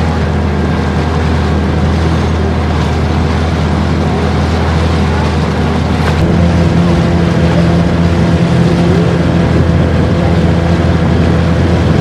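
Motorboat engine running steadily at cruising speed, a low droning hum over water and wind noise. About six seconds in the hum shifts in pitch and gets a little louder.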